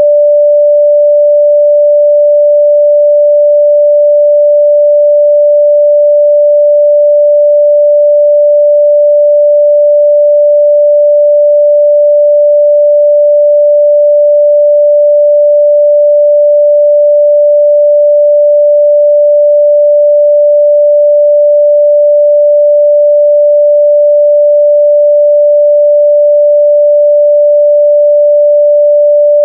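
A steady, loud 588 Hz sine-wave test tone: one pure, unchanging mid-range pitch, used to test how speakers and headphones reproduce that frequency.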